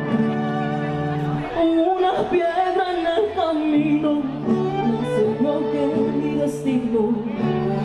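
Music with a singing voice: steady held chords, with a wavering sung melody coming in about a second and a half in.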